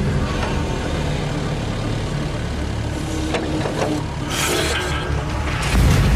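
A digger's engine running steadily, then a large metal weight dropped from it into a lake, hitting the water with a deep, loud splash near the end.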